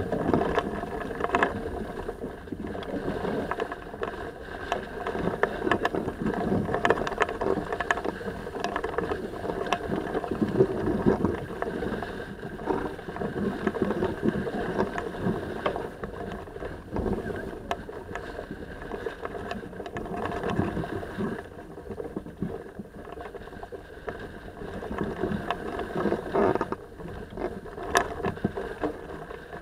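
Sailing yacht underway: a steady, fluctuating rush of wind and water along the hull, with scattered small knocks and clicks from deck gear.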